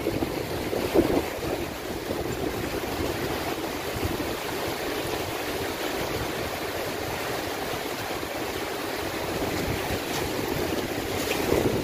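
Steady rush of water pouring out through a reservoir sluice gate outlet, growing a little louder near the end.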